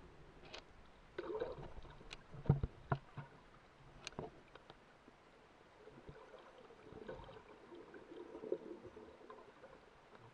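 Muffled underwater sound picked up by a submerged camera: water sloshing and bubbling, with a few sharp clicks and knocks, most of them between about half a second and four seconds in.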